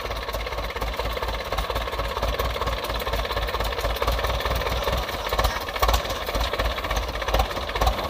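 Small diesel engine of a tracked rice-hauling carrier running steadily with an even chug.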